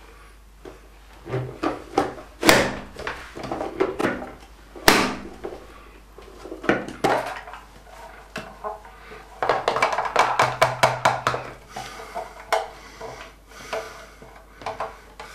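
Plastic Nicer Dicer chopper being pressed down on garlic cloves, with two loud sharp clacks as the lid is pushed through the cutting grid. Later comes a quick run of tapping and rattling as the clear plastic container is knocked to shake the diced garlic out.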